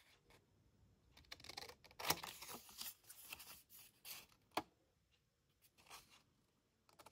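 Quiet handling of paper collage pieces: several short, scattered rustles and scrapes, with one sharper click about four and a half seconds in.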